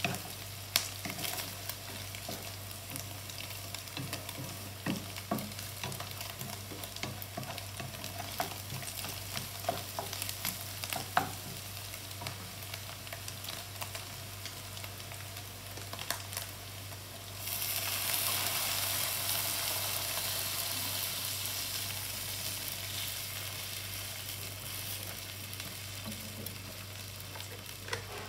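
Sausage slices, ham and onions frying in a nonstick pan, with a wooden spatula clicking and scraping against the pan as it stirs. A little past halfway, a sudden louder sizzling hiss starts and slowly fades as white sauce goes into the hot pan.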